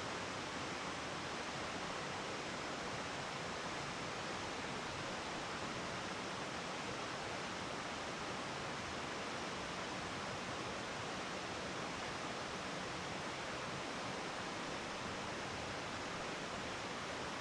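Waterfall cascade on a mountain stream, a steady, even rush of water that does not change.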